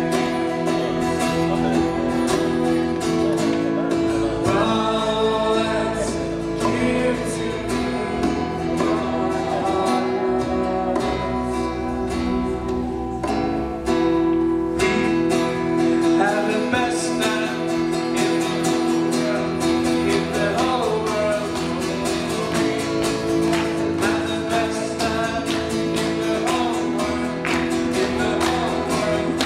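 Live song with an acoustic guitar strummed and voices singing over it.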